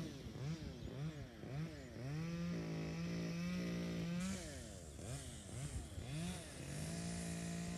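Small engine running, its pitch repeatedly dipping and rising as it is revved, with a steady stretch of even running for a couple of seconds in the middle and again near the end.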